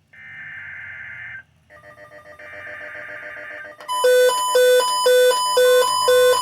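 Emergency Alert System SAME header data bursts: a harsh digital tone burst lasting about a second and a half, a short gap, then another. About four seconds in, a much louder electronic alert tone pattern starts, beeping about three times a second.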